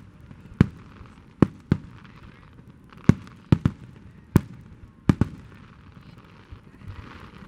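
Aerial fireworks going off: about nine sharp bangs at uneven intervals, some in quick pairs, with a faint crackling haze between them.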